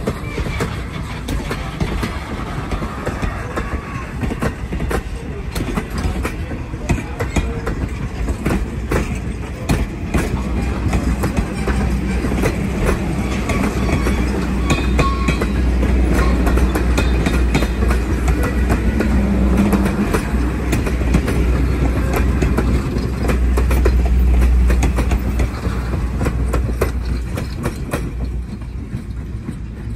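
Passenger coaches of a steam excursion train rolling past, steel wheels clicking over the rail joints above a steady rumble. It grows louder in the middle and eases near the end as the last car, an open-platform observation car, goes by.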